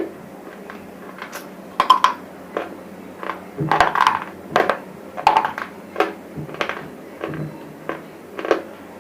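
Close-up crunching and chewing of dry, brittle bar chips in the mouth: a run of sharp, crisp cracks and crackles at an irregular pace, a few a second, loudest and busiest in the middle.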